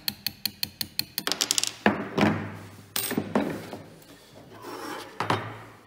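Pin punch being tapped to drive a trigger-group pin out of a Pardus pump-action shotgun's receiver: light metallic taps about five a second, then a quick flurry of taps about a second in. A few heavier knocks and clunks with a short ring follow, around two, three and five seconds in.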